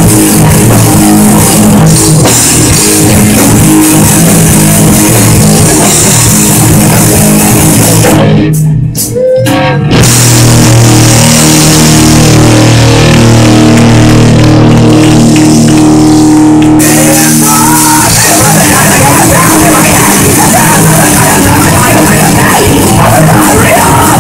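Live punk rock band playing loud: distorted electric guitars, bass guitar and drum kit, recorded close enough to distort. About eight seconds in the band breaks off briefly, then comes back in with held, ringing chords before the full band kicks back in around seventeen seconds in.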